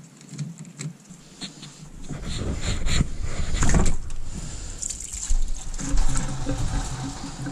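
A rusty steel coolant-hose connector on a Dodge Ram 5.9 Magnum V8 being worked loose and pulled out by hand, with scraping, clicks and leftover coolant splashing and trickling out. The noise grows louder about two seconds in.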